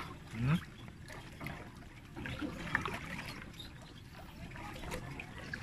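Water trickling and lapping around a pedal-powered water bike on a lake, with faint voices in the background.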